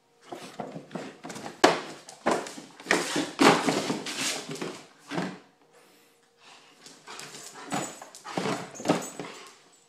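Bernese mountain dog mauling a cardboard soda-can carton: cardboard rustling, crumpling and ripping in repeated bursts, busiest in the first half, with a short lull past the middle before more bursts near the end.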